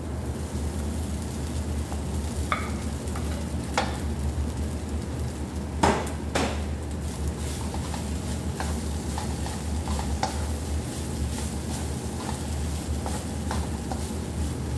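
Wooden spoon scraping and stirring rice into minced meat in a non-stick frying pan, with a light sizzle. Several sharp knocks of the spoon against the bowl and pan rim, the loudest about six seconds in.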